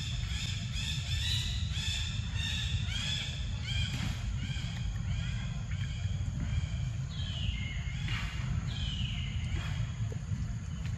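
A bird calling in a quick series of short, arching notes, about two to three a second, then two longer calls that fall in pitch near the end, over a steady low rumble.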